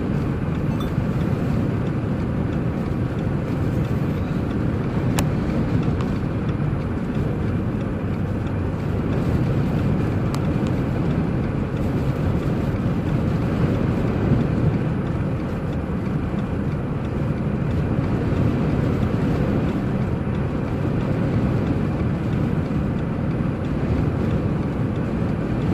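A car driving slowly through a blizzard on snow-covered road: a steady low drone of engine, tyre and wind noise.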